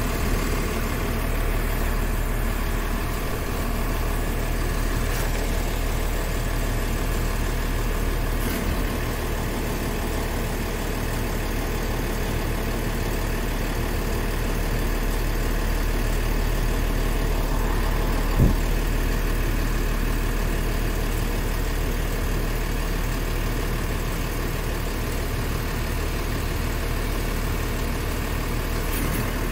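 Garbage truck's engine idling steadily at the curb, with one brief sharp knock about eighteen seconds in.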